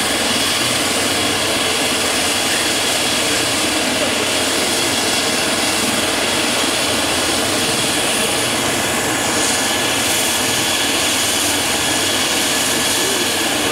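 Eurocopter EC135 helicopter's twin turboshaft engines running at ground idle with the main rotor turning, a steady, unchanging turbine whine.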